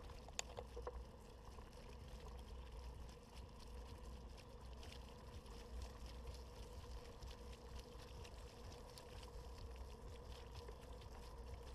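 Mountain bike tyre rolling along the wet mesh matting of a floating bridge: a faint wash of water with small scattered ticks and rattles over a steady low rumble and a faint steady hum.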